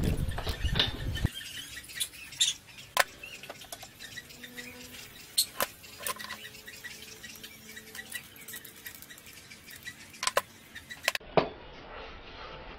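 Scattered light knocks and clicks of wooden pieces and tools being handled and set down on a wooden workbench while a board is positioned on a jig.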